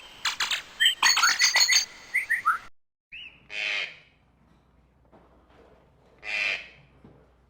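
Forest birds calling: a rapid run of chirps and short falling whistles for nearly three seconds, then two harsh, scratchy calls a few seconds apart.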